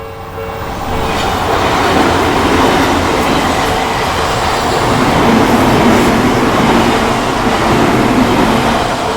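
An Odakyu Odawara Line electric train passes over a level crossing, its wheels rumbling on the rails, building up about a second in and easing off near the end. The crossing's warning bell keeps ringing in a steady repeating pattern under the train noise.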